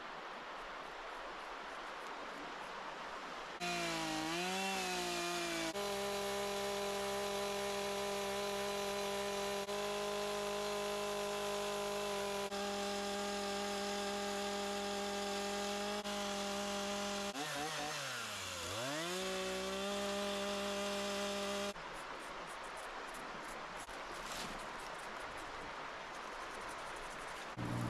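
Chainsaw carving wood, its engine held at high revs with a steady high whine. Around two-thirds of the way through, the revs drop sharply and climb back. The engine note gives way to a rougher, quieter running sound near the end.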